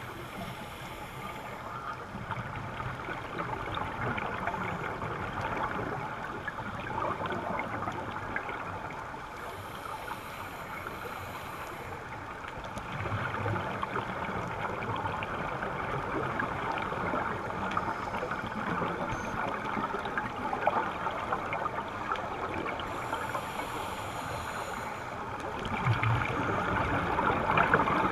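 Underwater scuba-dive ambience: a steady crackling, bubbling hiss of water and divers' regulator exhaust bubbles, swelling louder from time to time and loudest near the end.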